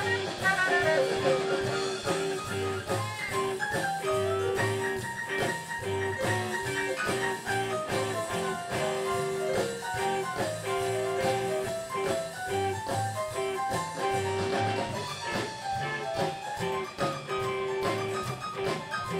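Live band playing a blues-style instrumental passage, with a guitar prominent over a held, repeating note and a steady beat.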